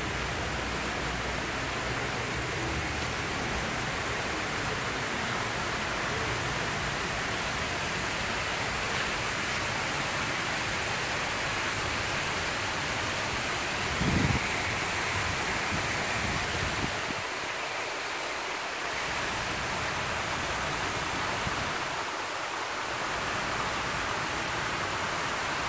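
Steady rush and splash of a large fountain's many water jets falling back into its basin. A brief low thump about halfway through.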